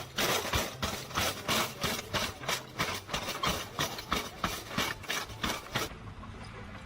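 A rapid series of sharp knocks, about four a second, that stops about six seconds in, leaving a faint steady background noise.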